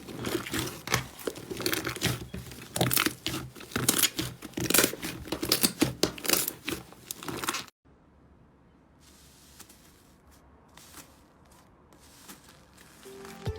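Slime being pressed and pulled, with a dense run of crackling and popping. It cuts off abruptly a little past halfway, leaving a faint stretch with only a few soft clicks.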